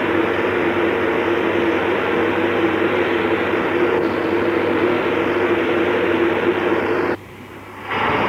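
Steady hiss of a NSW 38 class steam locomotive simmering at rest, with a low steady hum under it. It cuts out for under a second near the end, then resumes.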